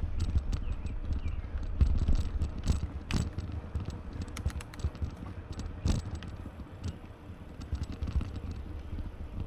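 Bicycle being ridden, with low wind rumble on the microphone and scattered irregular clicks and rattles.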